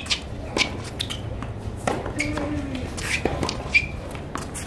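Tennis practice rally on a hard court: racquets strike the ball about once a second, and a brief voice sound follows a shot about two seconds in.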